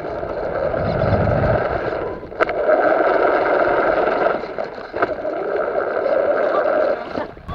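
FPV RC car's electric motor and drivetrain whining steadily as it drives across grass. The whine drops briefly just over two seconds in, picks up again, and cuts off shortly before the end.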